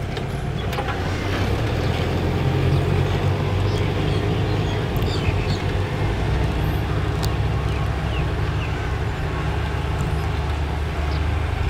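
Kubota tractor's diesel engine running steadily under load as it pulls a disc harrow through tilled soil.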